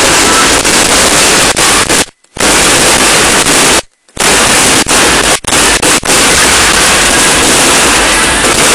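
Supporters' firecrackers and pyrotechnics going off in a dense, continuous crackle, so loud that the recording is saturated into a steady noise, with two brief cut-outs about two and four seconds in.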